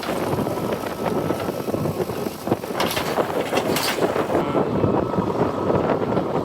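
JCB 3DX backhoe loader's diesel engine running under work, with a short run of sharp clatters about three seconds in.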